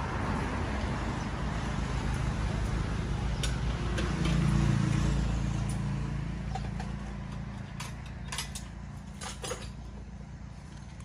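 Low engine rumble of a passing motor vehicle, swelling about halfway through and then fading, with a few short sharp clicks near the end.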